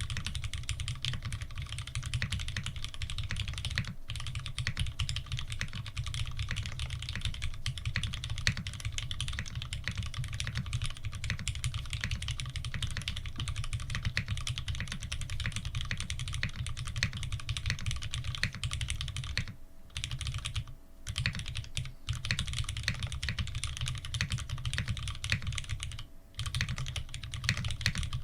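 Fast, continuous typing on an F2-84 custom mechanical keyboard with lubed Cherry Retooled Black linear switches and GMK keycaps: dense key clacks, with a few brief pauses about two-thirds of the way through and again near the end.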